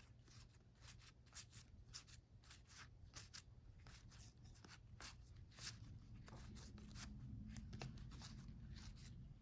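Faint light clicks and rustling of game cards being handled and flipped through, with a low steady hum underneath.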